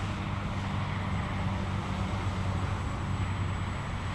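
Quadcopter's Walkera MX400 motors and propellers humming steadily in flight, with a low rumble of wind on the microphone.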